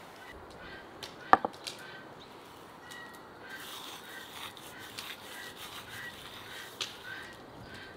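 Dried thyme being rubbed and crumbled between the palms over a clay bowl, a dry rasping rub. A sharp knock about a second in is the loudest sound, with birds chirping faintly in the background.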